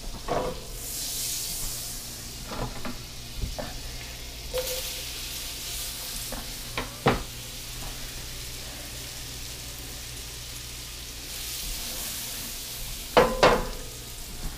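Food sizzling in hot butter and olive oil in a frying pan, the sizzle swelling and easing a few times, with scattered clicks and knocks of a utensil against the pan; the loudest knocks come near the end.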